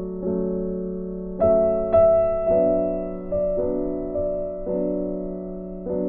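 Background music: a slow, gentle piano tune over a held low note, with soft notes struck about once a second.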